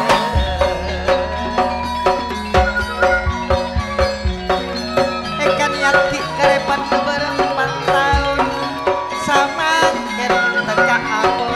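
Live band playing traditional-style folk music: steady hand-drum strokes under a melody line, with a deep bass note held near the start and again later on.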